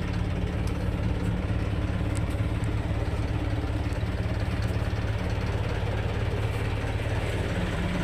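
Minibus engine idling steadily, a low even hum heard from inside the coach's cabin.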